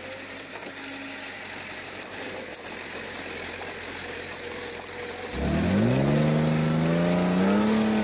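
Komatsu D31P bulldozer's diesel engine running low and steady, then revving up sharply about five seconds in, its pitch climbing toward the end.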